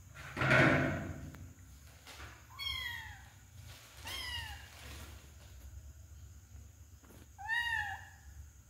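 Kitten mewing three times, short high-pitched mews that slide down in pitch, the last one near the end. About half a second in, a louder rustle of a plastic bag being crinkled by the playing kittens.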